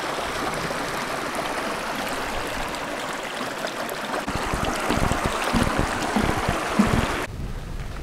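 Small creek running between shelves of ice, a steady rush of flowing water. Low bumps come through in the second half, and the water sound cuts off abruptly near the end.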